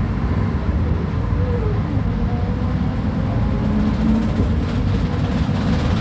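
Mercedes-Benz O500UA articulated bus's diesel engine running with a steady low rumble, and a faint whine that rises and falls in pitch about two seconds in.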